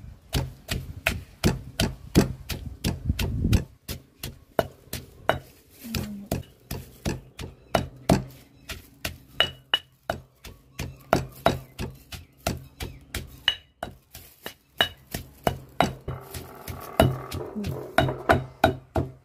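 Granite pestle pounding chillies and garlic in a granite mortar to make a chilli paste: a steady run of knocks, about two to three strokes a second.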